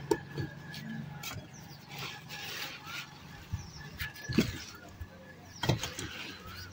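Bricks knocking as they are lifted off the edge of a plastic sheet, with the sheeting rustling between the knocks; the sharpest knocks come just after the start, about four seconds in and near the end.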